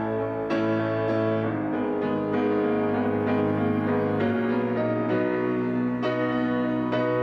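Slow, gentle piano music: sustained chords changing every second or so.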